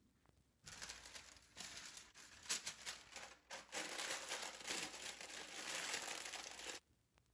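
Parchment paper crinkling and rustling as hands press and fold it into a loaf pan. It starts under a second in and stops shortly before the end.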